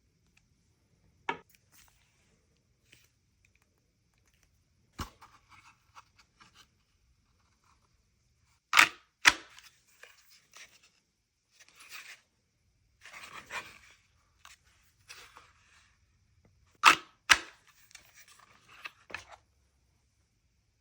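Handling noises from a pistol and its gear: scattered sharp clicks, two loud pairs of clicks about half a second apart, with rustling and scraping between them.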